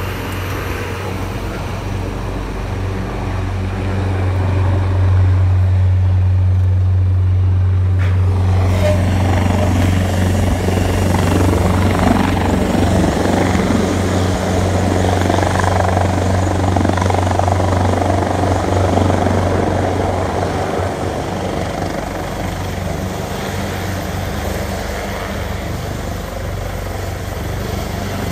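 AgustaWestland AW189 twin-turbine helicopter hovering low and then flying away, its rotors and engines making a loud, steady low drone. The sound swells about five seconds in and fades during the last third as the helicopter moves off.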